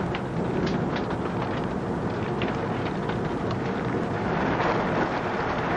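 Violent tornado winds blowing steadily, with rain driven against window glass in many scattered sharp ticks.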